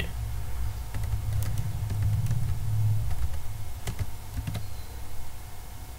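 A few scattered computer keyboard and mouse clicks over a steady low hum.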